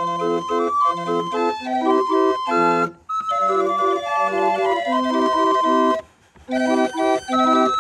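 A 23-key G. Molinari & Sons street organ playing a tune, its pipes sounding a melody over a bouncing bass-and-chord accompaniment. The music breaks off briefly twice, about three seconds in and again near six seconds.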